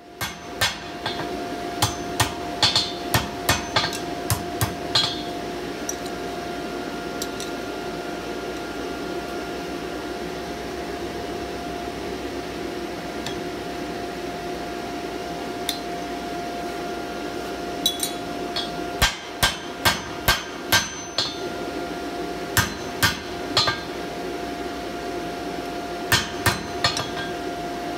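Hand hammer striking hot steel on an anvil in runs of several quick blows, with a long pause in the middle, over a steady hum. The blows shape and square up the jaws of a pair of forged tongs.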